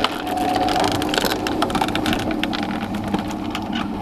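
Roller shutter's tubular motor running in descent as the shutter lowers: a steady hum under a dense clatter of clicks. The motor keeps running while its down limit is being set.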